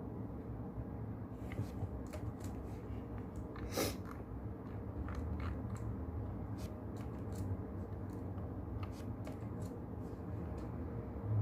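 Keyboard typing: irregular clicks of keystrokes, several a second in spurts, over a steady low brown-noise rumble.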